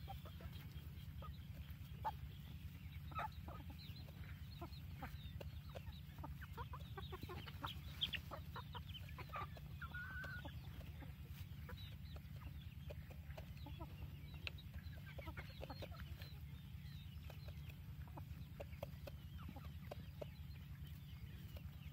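A flock of chickens clucking while they forage, with many short, scattered clucks and one brief drawn-out call about ten seconds in.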